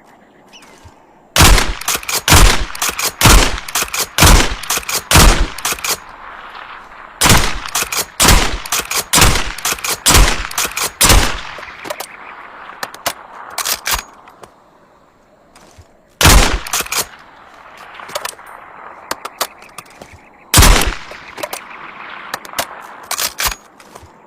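Essex model 07 lever-action rifle with a suppressor firing, sharp loud shots mixed with lighter clacks of the action being worked. A fast string of shots runs through the first ten seconds or so, then a few more come in short groups.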